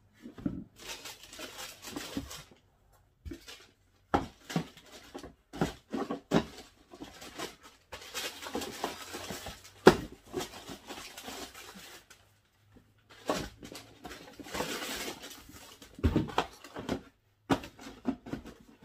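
Hands rummaging inside a cardboard shipping box: packaging rustling in stretches, with scattered knocks and taps against the cardboard, the loudest knock about halfway through.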